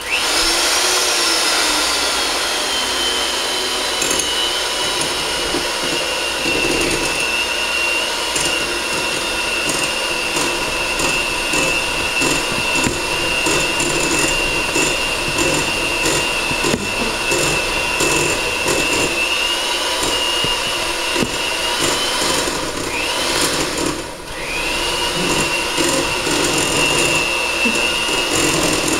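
Electric hand mixer running steadily with a high whine, beating butter and sugar in a glass bowl. Late on its pitch sags and it cuts out for a moment, then starts again.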